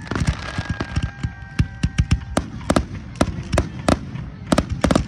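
Aerial fireworks going off in quick, irregular succession, several sharp bangs a second, with a thin high whistle heard for about two seconds early on.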